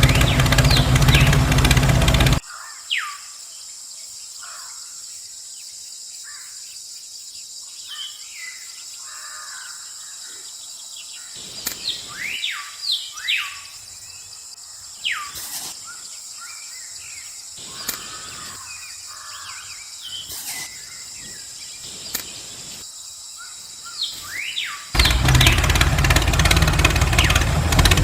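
Loud, steady engine-like running noise cuts off about two seconds in. Then birds chirp in short, downward-sweeping calls over a steady high hiss, until the engine-like noise returns suddenly near the end.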